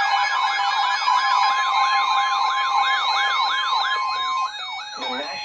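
Electronic yelp siren wailing up and down about three times a second over a steady 1050 Hz weather-radio warning alarm tone. The steady tone stops about four and a half seconds in, and the siren fades out just after.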